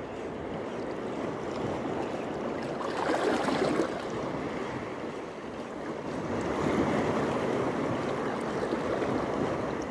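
Waves washing in over a shallow reef shore, a steady wash that surges louder twice, about three seconds in and again near seven seconds.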